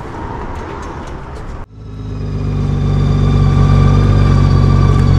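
A few light clicks of handling noise, then, after an abrupt cut, the 2014 Honda Valkyrie's 1832cc flat-six engine running steadily, swelling up over about a second.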